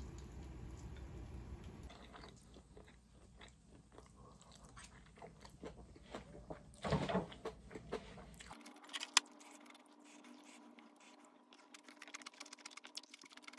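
Quiet eating sounds: chewing, with small clicks of wooden chopsticks and a wooden spoon against a ceramic rice bowl and plate. A louder patch comes about seven seconds in, and a single sharp click a little after nine seconds.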